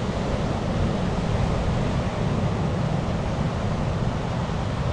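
Wind buffeting the microphone over the steady wash of surf.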